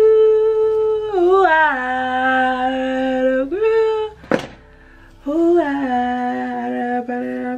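A woman's voice singing long held notes without words, sliding down between steady pitches, with a single short sharp sound about four seconds in followed by a brief pause.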